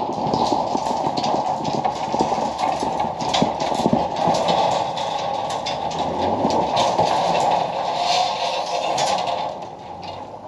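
Z71 pickup truck moving in over snowy ground with a load of rebar on its rack. Its engine and tyres make a steady noise, with a run of clattering knocks on top, and the sound fades near the end.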